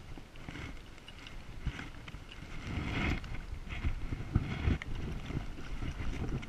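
Water lapping and sloshing close to the microphone, with an uneven rumble of wind on the mic and scattered crackly splashes.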